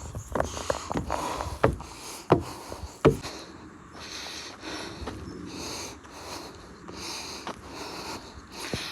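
A hiker's footsteps on a mountain trail, a sharp step about every 0.7 seconds for the first three seconds. After that, the hiker's breathing, repeated breaths in and out.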